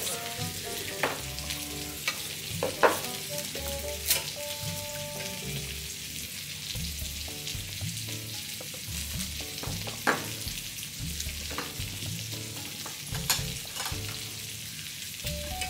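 Samgyeopsal (pork belly) sizzling in its own fat on a tabletop grill, with a sharp click of a metal utensil against the grill every few seconds.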